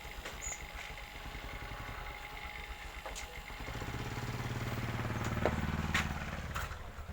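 Engine of a passing vehicle, growing louder from about halfway through and fading near the end, with a few sharp clicks.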